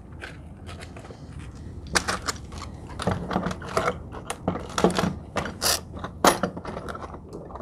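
Small metal hardware and plastic organizer parts being handled on a wooden workbench: irregular clicks, knocks and clatter as pieces are picked up and set down, sparse at first and busier from about two seconds in.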